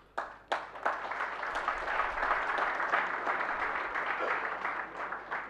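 Audience applauding: a few scattered claps at first, quickly filling into steady applause that dies away near the end.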